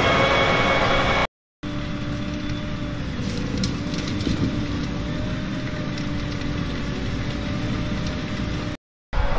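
Ropa Tiger 6S self-propelled sugar beet harvester running steadily under load while lifting beets, a steady engine drone with a level hum. It is louder at first, then cuts out briefly about a second in and again near the end, with a quieter hum in between.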